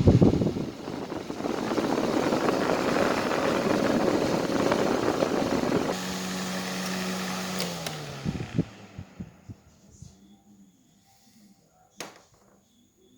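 Vintage Lorenzetti electric fan running with a loud rush of air, then switched off about six seconds in: its motor hum falls slowly in pitch as the blades spin down. A few clicks follow as it comes to rest, and there is one sharp click near the end.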